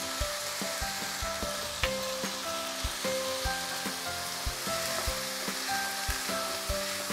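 Green peas and diced potato sizzling gently in oil in a non-stick kadhai while being stirred with a wooden spatula, which knocks and scrapes against the pan in irregular taps.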